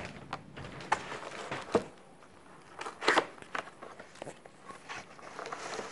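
Cardboard box and plastic packaging being handled: scattered rustling, crinkling and light knocks, busiest about three seconds in.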